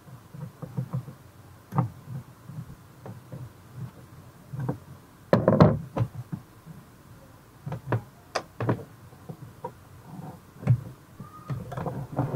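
Irregular knocks, taps and scrapes of hands and a screwdriver working the amplifier panel out of the back of a speaker cabinet, with a louder clatter about five and a half seconds in.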